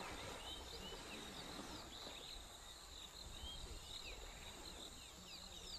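Faint wild ambience: a steady insect drone with many short bird chirps that slide in pitch over it.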